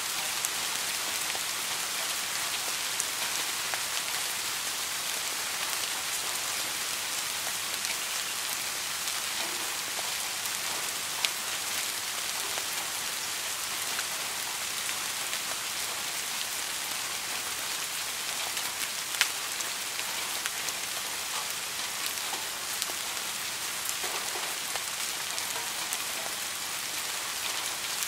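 Steady rain falling, an even hiss with scattered sharper drop ticks; two louder single ticks stand out about eleven and nineteen seconds in.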